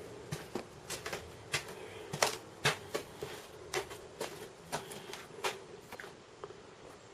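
Faint, irregular clicks and taps, roughly two a second.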